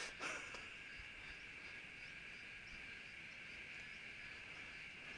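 Faint, steady high-pitched insect chorus, with small chirps repeating above it.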